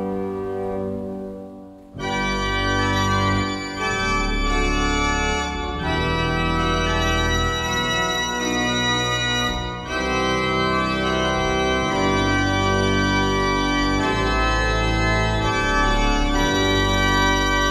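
Heinrich Schiffner pipe organ (1913) playing slow sustained chords. A softer chord dies away in the first two seconds, then the full organ comes in with deep pedal bass and holds loud chords, with brief breaks between phrases.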